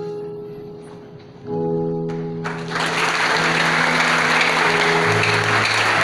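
Held closing chords of the accompanying music, then an audience bursts into applause about two and a half seconds in and keeps clapping over the last sustained notes.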